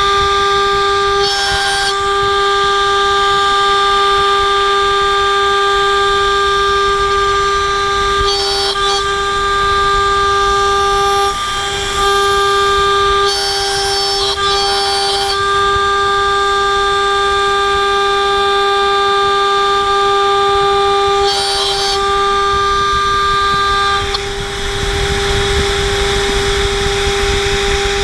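HSD 10 hp spindle on a CNC router milling 6061-T6 aluminium plate with a spiral end mill under oil mist. It gives a loud, steady high whine with several tones, broken a few times by short, harsher rasping bursts. Near the end some of the higher tones drop out and the sound turns rougher.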